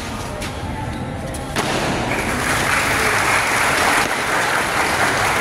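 A few faint knocks, then a hall crowd starts applauding about one and a half seconds in, the clapping continuing steadily and loudly.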